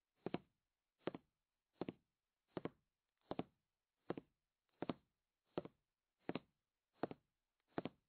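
A soft knock repeating evenly about every three-quarters of a second, a steady slow beat with silence between the hits.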